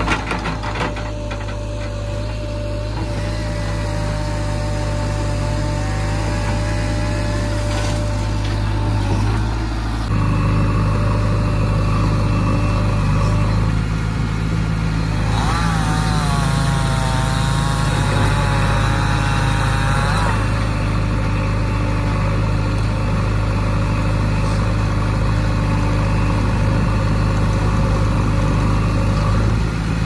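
JCB 3DX backhoe loader's diesel engine running steadily, with a few knocks at the very start. A whine that wavers up and down in pitch comes in for several seconds twice, near the start and again in the middle.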